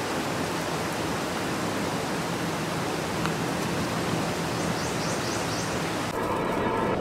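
Steady rushing of river floodwater flowing across a submerged road. About six seconds in the rushing drops away and a faint steady hum takes over.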